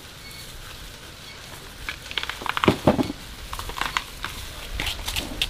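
Stiff husk sheaths being torn and stripped off fresh bamboo shoots by hand: irregular crackling and tearing snaps that start about two seconds in, loudest around the three-second mark, with more near the end.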